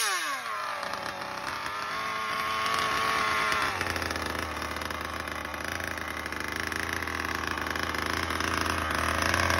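Twin-engine 57cc two-stroke gas setup of a Rovan RF5 1/5-scale RC car, dropping from a rev in the first second and then idling. A steady deep hum comes in about four seconds in, and the revs creep up again near the end.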